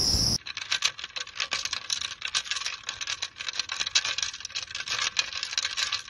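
Ice cubes in a glass of orange juice crackling and ticking, a dense run of tiny irregular cracks that starts about half a second in.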